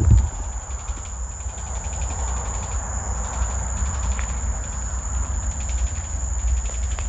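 Steady high-pitched insect drone over a low rumble.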